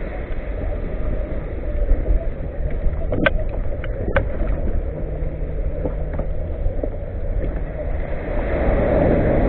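Wind buffeting a kayak-mounted camera's microphone, a steady low rumble, with a couple of sharp clicks about three and four seconds in.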